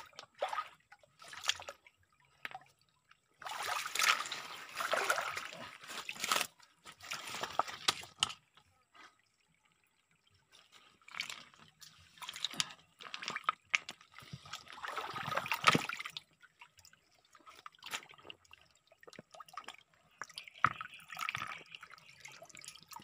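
Hands splashing and feeling among the stones of a shallow, trickling stream while picking snails. The splashing comes in spells of a few seconds with quieter gaps between.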